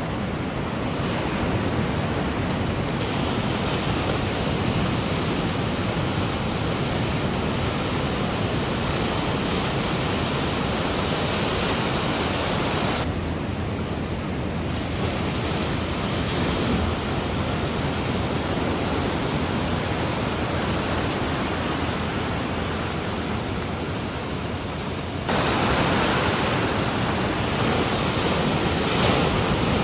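Steady rushing of ocean waves and surf, mixed with wind on the microphone. The noise changes character abruptly about 13 seconds in and again about 25 seconds in, louder and brighter after the second change.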